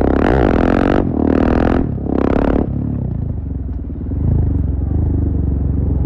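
2017 KTM 690 Duke's single-cylinder engine through a full Akrapovic exhaust, ridden hard: three loud bursts of acceleration with short breaks between them in the first couple of seconds, then steadier, quieter running.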